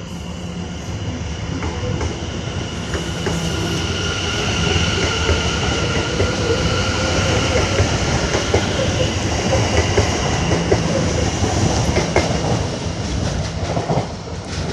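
Class 720 Aventra electric multiple unit running alongside the platform: a steady high whine over a rumble, with clicks of the wheels over rail joints.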